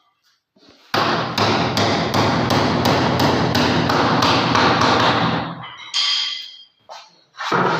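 Rapid, regular knocking, a little under three strikes a second, over a steady mechanical noise for about four and a half seconds, then a few separate knocks near the end: woodworking tool work on cabinet parts.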